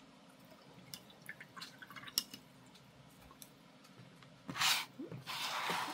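Small scattered clicks and taps of painting tools on the desk, then a short rustle about four and a half seconds in and a longer rubbing rustle near the end.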